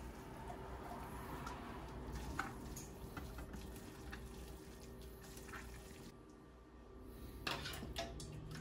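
Tongs lifting wet spaghetti from a stainless steel pot onto a platter: faint dripping and wet slithering, with a few light metal clicks, several close together near the end.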